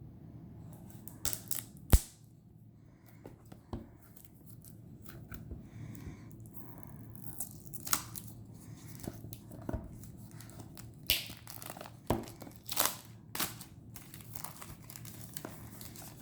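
Plastic wrapping being torn and crinkled off a boxed tarot deck: irregular crackling rustles and sharp clicks, with one sharp snap about two seconds in and a denser run of crinkles near the end.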